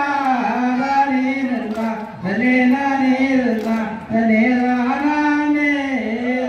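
A voice singing a slow melody in long held notes, phrase after phrase, with short breaths about two and four seconds in.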